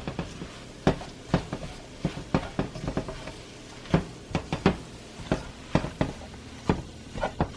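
A utensil stirring flour into sautéed amaranth greens in a cooking pan, knocking against the pan about twice a second at uneven intervals.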